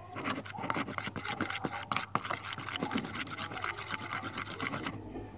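Slime mixture of white glue and hand cream being stirred in a container: quick, continuous scraping and sticky clicking of the stirring utensil, which stops near the end.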